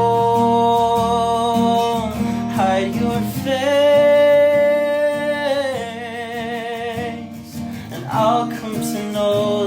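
Acoustic song: a singer holding long notes over acoustic guitar, with a higher held note about four seconds in that then wavers with vibrato.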